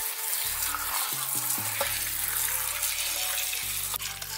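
Wet Malabar spinach leaves being swished and rubbed by hand in a steel bowl of water, a steady splashing rustle.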